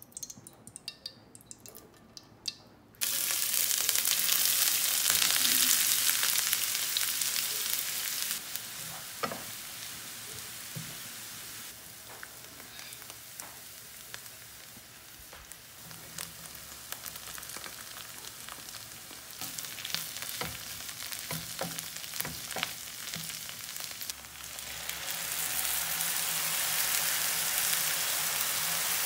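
Food frying in hot oil in a nonstick frying pan, starting with a few faint ticks, then breaking into a loud sizzle about three seconds in as chopped aromatics hit the oil. The sizzle eases off and goes on steadily with scattered clicks of stirring, and grows louder again near the end as diced mushrooms in a dark sauce fry.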